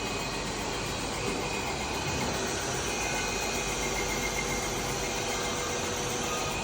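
Machinery running steadily: a continuous even whirr with faint steady tones over it.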